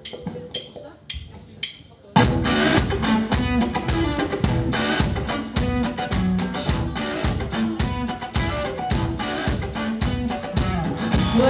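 Live rock band playing an instrumental passage: a few tambourine shakes, then about two seconds in the full band comes in with electric guitar, bass guitar and drums on a steady beat.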